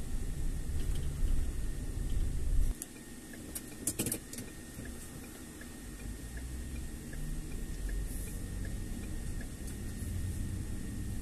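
Road noise inside a moving car: a low rumble that drops off suddenly about three seconds in, a quick cluster of clicks a second later, then the rumble slowly building again. Faint, evenly spaced ticks run under it in the second half.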